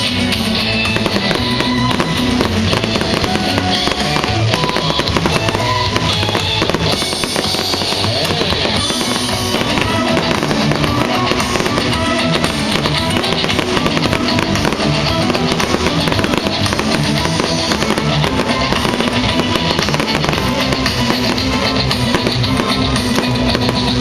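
Rock music with drums and electric guitar, over a continuous run of fireworks bursts and crackling.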